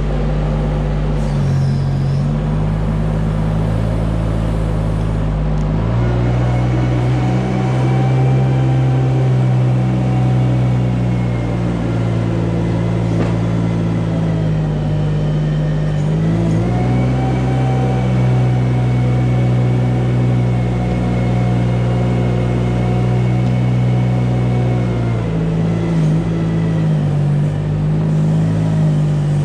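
Mini-tractor engine running under load while scraping manure, speeding up about six seconds in and again about halfway, and easing back down near the end, with a thin whine rising and falling along with the engine note.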